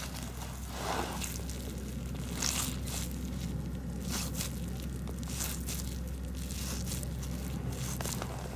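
A hand scoops and squeezes damp groundbait of raw millet, corn grits and grey bread in a plastic bag. The bag crinkles and the bait squishes in short, irregular rustles.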